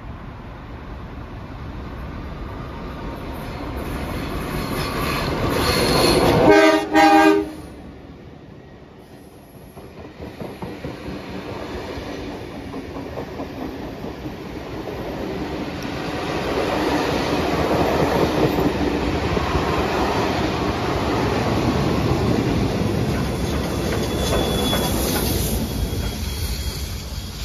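Heritage passenger train passing close by. Its locomotive, the red 49 class diesel 4903, comes up getting louder and sounds two short horn blasts about six to seven seconds in. A long rake of passenger carriages then rolls past, wheels clicking over the rail joints.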